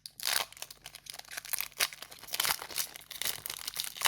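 Foil Yu-Gi-Oh booster pack wrapper crinkling and tearing as it is ripped open, an irregular run of sharp crackles.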